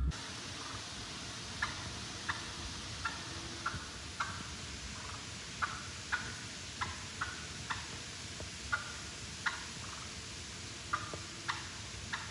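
Wild turkeys clucking: short, sharp calls repeated at irregular intervals, roughly one or two a second, over a steady hiss.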